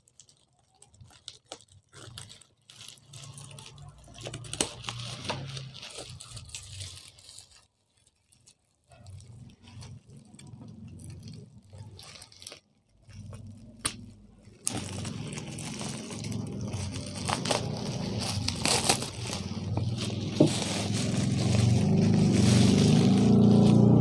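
Scissors snipping and bubble wrap crinkling as a plastic-wrapped parcel is cut and pulled open, in scattered short clicks and crackles. About halfway through, background music comes in and grows steadily louder.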